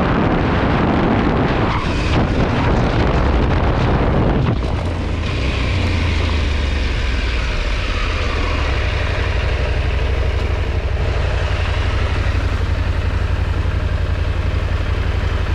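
KTM 890 Adventure R's parallel-twin engine running under way, with a heavy rush of wind and road noise over it that drops away about four and a half seconds in, leaving a steady engine drone.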